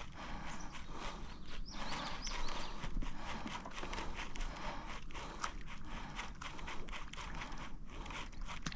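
Irregular light clicks and knocks, several a second, from fishing tackle and gear being handled in a canoe.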